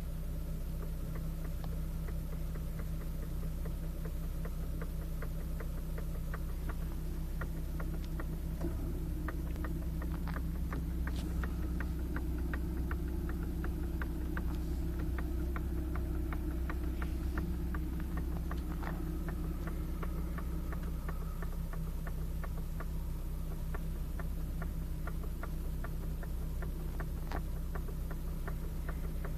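BMW E46 steering knocking in a run of short, light clicks while the wheel is turned slightly to the left, over the steady hum of the idling engine. The knock comes only when turning left, not right, a sign of a fault in the steering.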